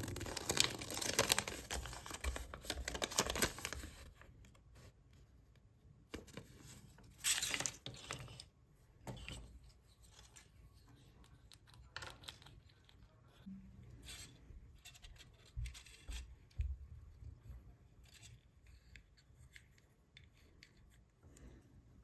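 Foil wrapper of a chocolate surprise egg being torn open and crinkled for about the first four seconds, then quieter intermittent rustling and small clicks.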